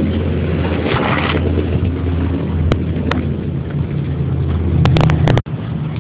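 Low steady hum of a running engine, with a cluster of sharp clicks about five seconds in; the sound drops out suddenly for an instant just after.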